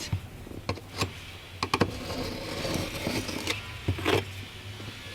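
Scattered light clicks and knocks from handling the adhesive and carpet while glue is applied, with a close pair of sharp ticks about two seconds in and a short louder scrape or squeak near the end.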